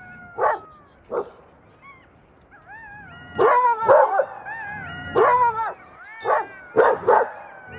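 Dogs barking in short, sharp barks, a cluster in the middle and a quick pair near the end, with high-pitched whining between them.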